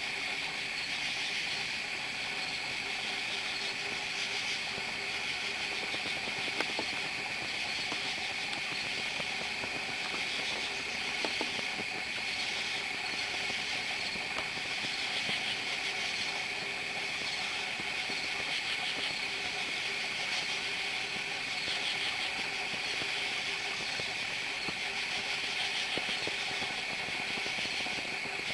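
Night insect chorus: crickets trilling steadily, with katydids calling every second or two above the trill.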